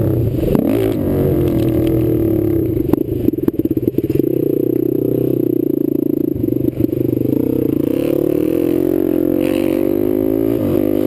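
Sport quad's engine running hard at high revs, its pitch dipping and climbing back a few times as the throttle eases and opens again. There is a stretch of clattering over rough ground about three seconds in.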